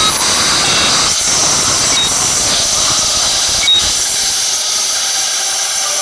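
Steady hissing road noise from traffic, with two short high beeps, one about two seconds in and one nearly four seconds in.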